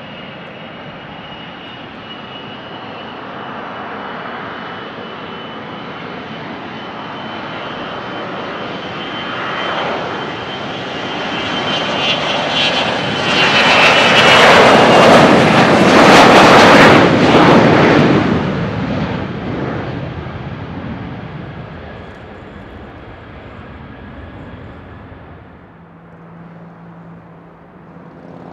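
Airplane passing close by: engine noise builds to a loud peak about halfway through, then fades away. A steady high whine rides over it at first.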